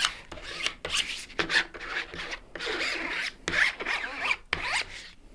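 Fingers rubbing and pressing a vinyl decal and its paper backing down onto a surface: a run of irregular, scratchy rubbing strokes, with a few short squeaks in the second half.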